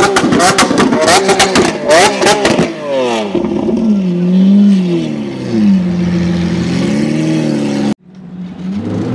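Lamborghini Aventador V12 revving hard with a rapid string of sharp exhaust pops and bangs, the crackle that comes with flames from the exhaust. About three seconds in the revs drop and the car pulls away, its engine note rising and falling through the gears. The sound cuts off suddenly near the end, and another engine note builds up.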